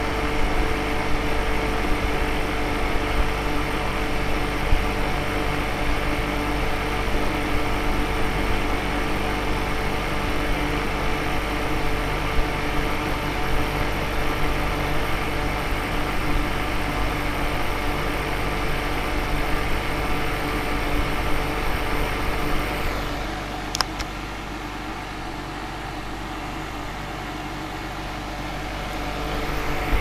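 Homemade 12-volt ice-chest air conditioner running, its fan blowing air through a finned coil while the water pump circulates ice water: a steady whir with a low hum. It turns quieter for a few seconds near the end, with a single click as it drops.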